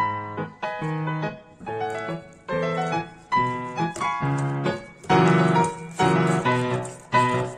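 Background piano music, a run of notes and chords at an even pace.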